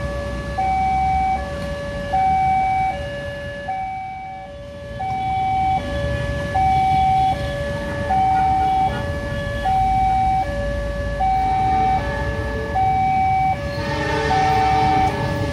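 Railway level-crossing warning alarm sounding: an electronic two-tone signal alternating high and low, each tone about three-quarters of a second, warning of an approaching train. Near the end the noise of the approaching diesel locomotive rises beneath it.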